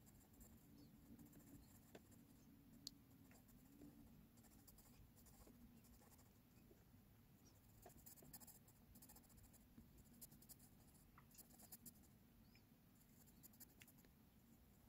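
Faint scratching of an HB pencil on textured drawing paper, in clusters of short, quick hatching strokes, over a low steady hum.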